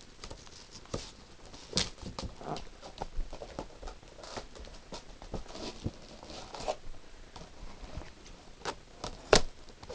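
Clear plastic packaging crinkling and clicking irregularly as hands pry and work at it, with a sharper snap near the end.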